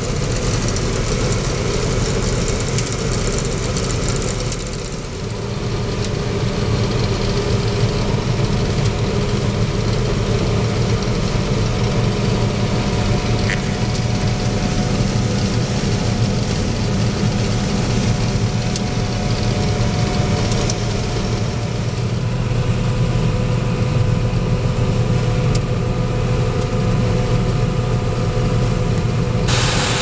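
John Deere combine harvesting soybeans, heard from inside the cab: a steady drone of the engine and threshing machinery with a low hum, which grows stronger about five seconds in.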